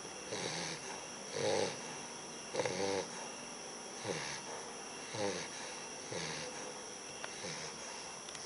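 Bulldog puppy snoring, one short snore about every second.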